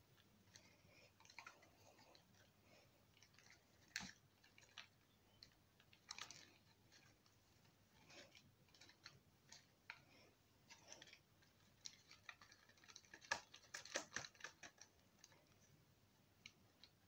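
Faint crinkling and crackling of a plastic-wrapped packet being waved and turned in the hand, in scattered crackles with a thicker flurry about three-quarters of the way through.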